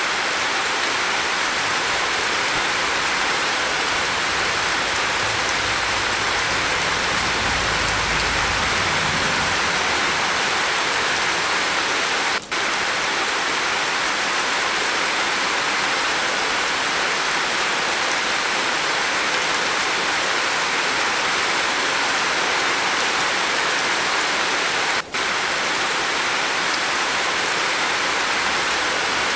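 Steady rain falling on a roof, a dense even hiss that briefly cuts out twice, about twelve seconds apart. A faint low rumble comes in about eight seconds in.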